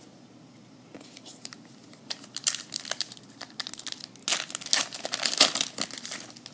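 Trading card pack wrapper crinkling and tearing as it is pulled open by hand, a dense run of crackles that starts about a second in and is loudest near the end.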